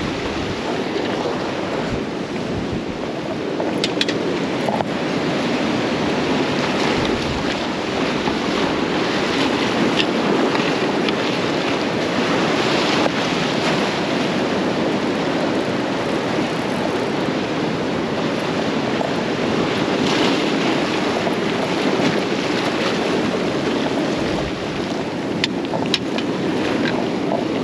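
Surf breaking and washing against the granite blocks of a rock groin: a steady rush of churning water that swells and eases as the waves come in.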